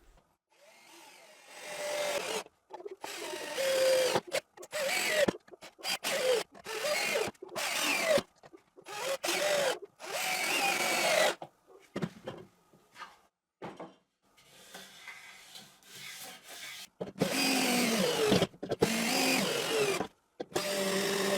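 Power drill driving screws into plywood: a dozen or so short runs of the motor with brief pauses between them, its pitch bending within each run.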